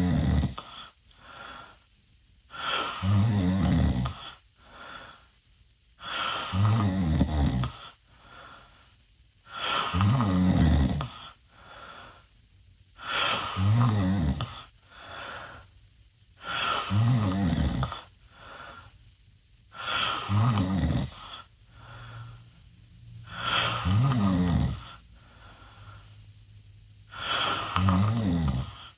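A teenage boy snoring loudly through an open mouth: a loud snore about every three and a half seconds, each followed by a softer breath, in a steady rhythm.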